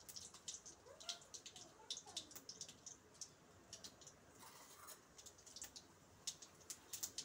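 Faint, irregular crackling and small pops of mustard seeds and chana dal frying in hot oil in a steel kadai: the start of a tempering.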